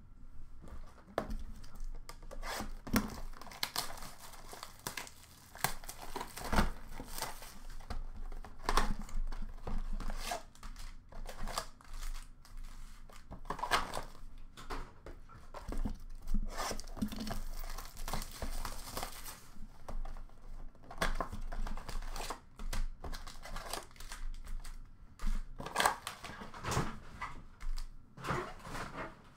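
Hockey card packs being torn open and their foil wrappers crinkled by hand, with busy, irregular crackling and rustling. One longer rustling tear comes a little past halfway.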